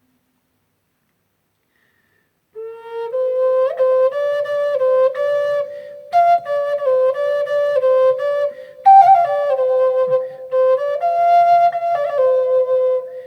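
About two and a half seconds of silence, then a flute-like wind instrument plays a slow melody of held notes as the song's instrumental break.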